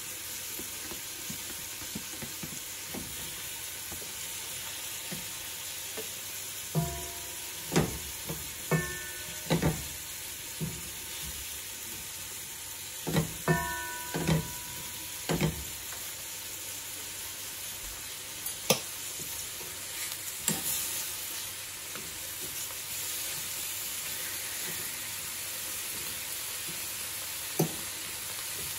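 Beef strips frying in a large aluminum pot with a steady sizzle, browned about half an hour, with freshly added onion and garlic. Stirring with a spatula brings scrapes and knocks against the pot, a few of which ring briefly: a cluster a quarter of the way in, another near the middle, then single knocks later.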